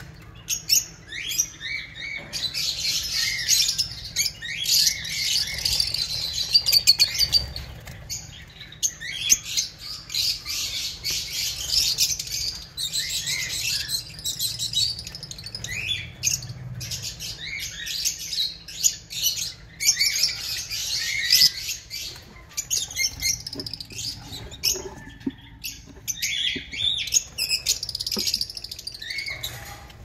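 Lovebirds chirping and screeching in rapid, high-pitched chatter, coming in stretches of several seconds with brief lulls.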